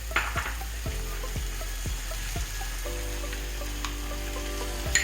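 Onions and ginger-garlic paste sizzling in hot oil in a pan, with a spoon clinking against the pan as it is stirred, once near the start and again near the end.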